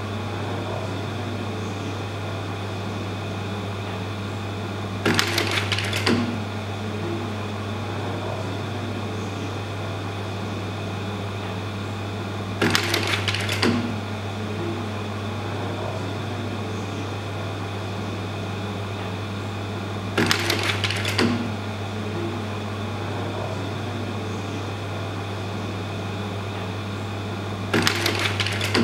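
Slide projector running with a steady fan hum; its slide-change mechanism clatters for about a second four times, roughly every seven and a half seconds, as the slides advance.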